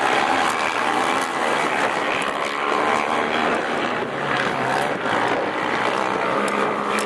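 Several racing quad (ATV) engines running hard at high revs as the quads climb and jump a motocross crest, the pitch rising and falling with the throttle.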